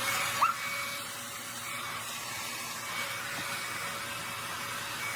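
Revlon infrared ionic hair dryer running: a steady rush of blown air with a faint, even motor whine.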